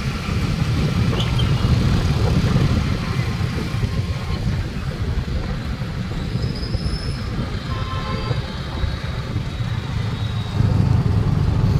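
Vehicle engines running loudly and continuously as they circle a maut ka kuan (wall of death), heavy in the low range. The roar grows louder near the end.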